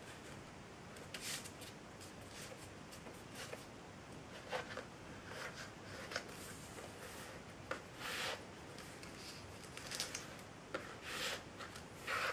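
A strip of printer paper being folded and creased by hand on a tabletop: irregular rustles and short sharp swipes as fingers press and slide along the folds.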